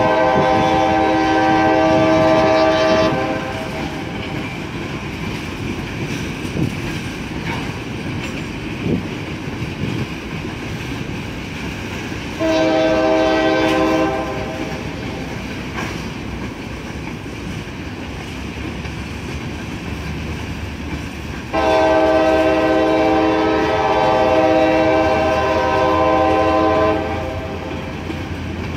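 Multi-chime air horn of CSX SD40-2 8435, a first-generation Nathan K5LA (K5LAR24), sounding three times: a long blast that ends about three seconds in, a short one around the middle, and a long one near the end. Between the blasts the covered hopper cars' wheels rumble and clatter over the rail joints.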